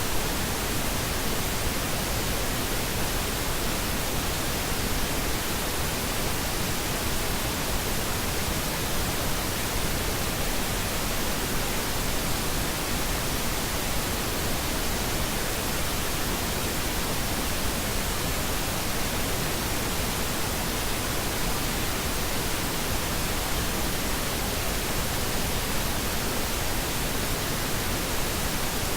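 Steady pink noise: an even, unchanging hiss with no breaks or changes.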